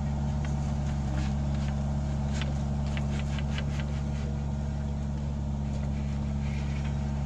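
Mini excavator's diesel engine running steadily, with a run of short clicks and rattles as its bucket presses down loose earth and stones.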